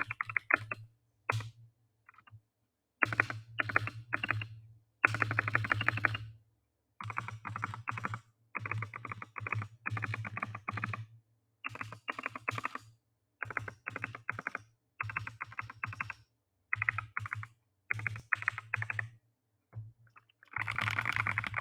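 Typing on a Zifriend ZA68 Pro mechanical keyboard: quick runs of keystrokes, each a second or so long, with short silent pauses between them. A longer, faster run comes near the end.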